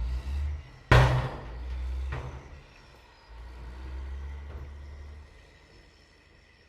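Truck or van engine running with a low rumble, a loud sharp bang about a second in and a smaller knock about a second later, then the engine sound dies away.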